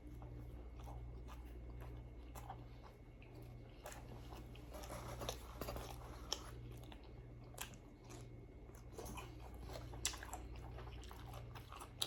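A person chewing and biting food close to the microphone, with scattered small crunches and mouth clicks over a steady low hum.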